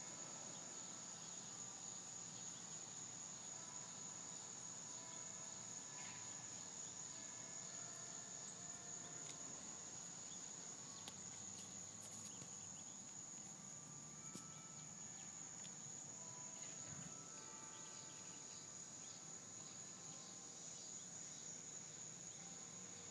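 Insects chorusing: a steady high-pitched trill that never lets up, with faint short pitched notes scattered over it.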